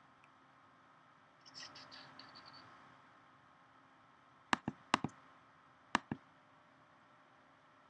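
Three quick pairs of sharp clicks about halfway through, each a press-and-release, typical of a computer mouse button. A faint soft rustle comes before them.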